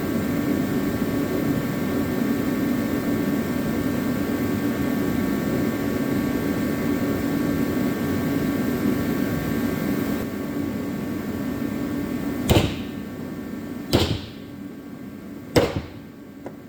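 A steady machine hum with several held tones, then three sharp metallic hammer strikes near the end, about a second and a half apart, each ringing briefly: a bushing being driven into a hay-rake tandem arm.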